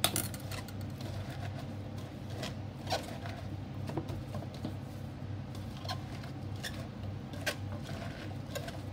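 Gloved hand tossing and squeezing sliced chayote in a plastic mixing bowl: irregular soft knocks of the slices against the bowl, the sharpest right at the start, over a steady low hum.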